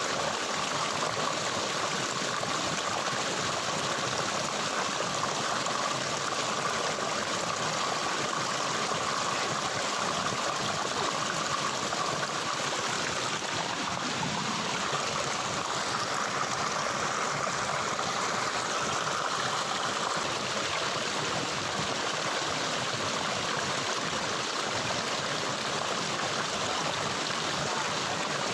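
Flowing water running steadily, an even, unbroken rush with no pauses or changes.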